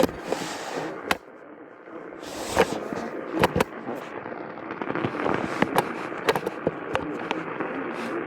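AM radio static: a steady hiss broken by many sharp crackles and pops.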